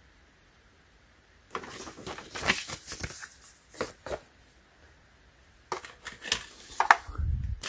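Paper and cardboard packaging rustling and crinkling as a folded paper user guide is put down and a kitchen scale is taken out of its cardboard packing insert, in two spells about a second and a half in and again near the end. Scattered sharp clicks, and a dull thump near the end.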